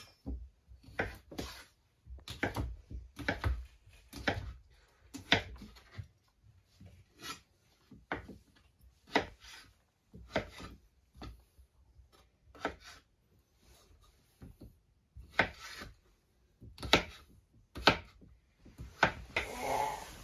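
Irregular knocks, taps and rubbing, as of things being handled and moved about in a small room, with short quiet gaps between them.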